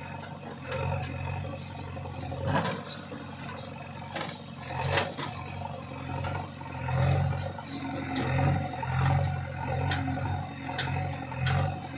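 JCB 3DX backhoe loader's diesel engine working under load, revving up and dropping back over and over as it digs and loads soil, with a few sharp clanks and scrapes of the bucket.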